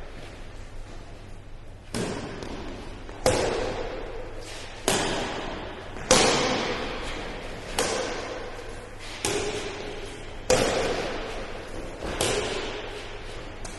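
Badminton rally in an indoor hall: rackets hit the shuttlecock eight times, roughly one hit every second and a half. Each sharp hit is followed by a short echo off the hall.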